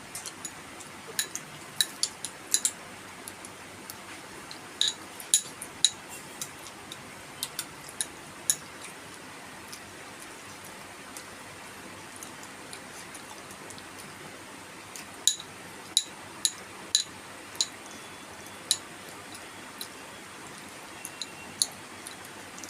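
Eating sounds of kheer and puri: sharp, irregular clicks and clinks in short clusters, with a quiet gap of several seconds in the middle.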